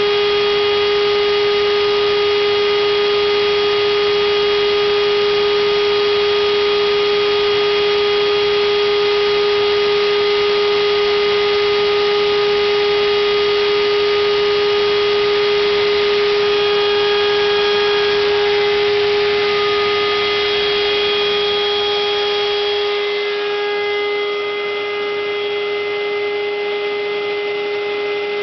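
Home-made CNC router's spindle motor running with a steady high whine over a noisy rush. The rush eases a little about three-quarters of the way through.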